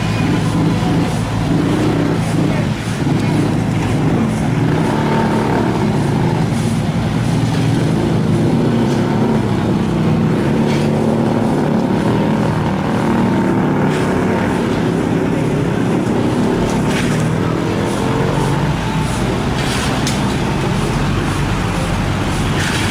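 Heavy diesel engines of dump trucks and paving machinery running steadily, with a few sharp knocks now and then.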